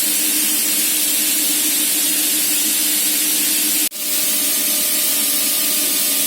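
Compressed air blowing off through a silencer in a loud, steady hiss, with the Gardner Denver ES15 screw compressor humming steadily underneath at full load. The air is vented to simulate consumption so that the repaired screw element can be checked for its rated flow of about 2.35 m³/min. The sound drops out for a split second about four seconds in.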